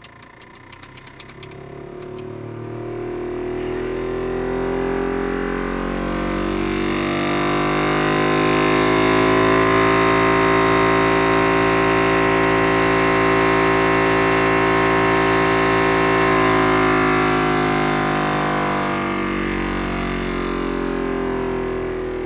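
Air-conditioning fan running with a loud pitched whirring noise that rises as the fan speeds up, holds steady, then falls as it slows near the end, with a few clicks about a second in. The noise is caused by a rat in the fan.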